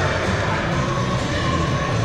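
Music playing with the murmur of a crowd in a sports hall.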